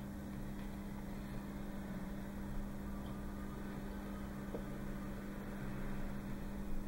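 A steady low mechanical hum, with a couple of faint light clicks as a metal rod works a rubber chamber packing into a small brass ring.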